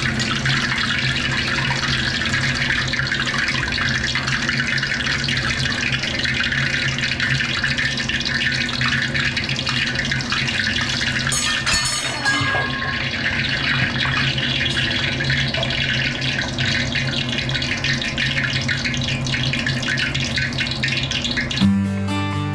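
Vegetable fritters (bakwan) sizzling and crackling steadily as they deep-fry in hot oil in a wok, over a steady low hum. Guitar music starts near the end.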